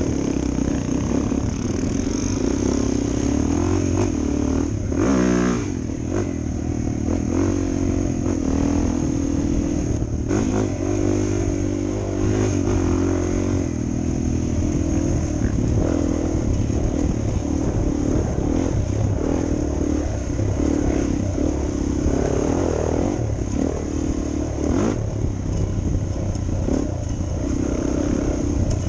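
Suzuki DR 400 dual-sport motorcycle's single-cylinder four-stroke engine running steadily under way, its revs rising and falling with the throttle.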